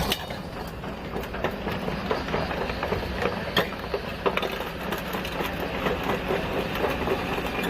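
Excavator diesel engine running steadily, with scattered metallic clicks and clanks throughout.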